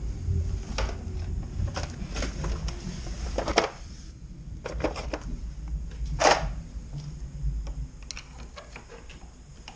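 A rubber cover being pried out of a car door's edge by hand: scattered clicks and scrapes of rubber and plastic, with two sharper snaps about three and a half and six seconds in, over low handling rumble.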